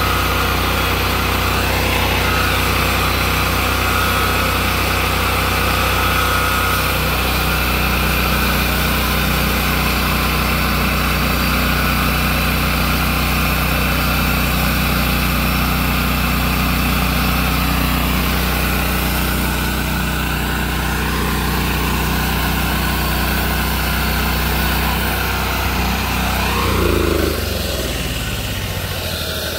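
Small gasoline engine of a portable band sawmill running steadily at speed while sawing, then throttled back near the end, its pitch falling.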